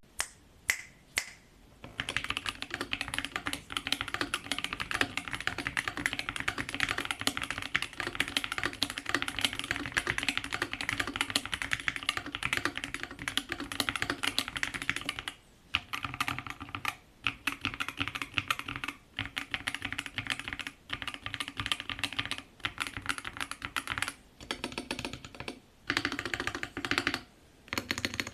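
Typing on a Monsgeek M1 HE-SP keyboard with Akko Cream Yellow magnetic Hall-effect switches, PBT keycaps and stock full foam. It opens with a few single keystrokes, then fast continuous typing, and in the second half bursts of typing broken by short pauses.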